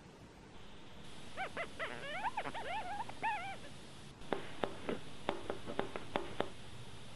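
A quick run of squeaky chirps that bend up and down in pitch, then about nine sharp knocks of a knife chopping button mushrooms on a cutting board, a few to a second.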